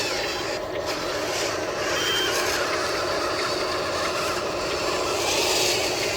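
Small electric motors and gearing of a model excavator running steadily, a continuous whirring, grinding mechanical sound.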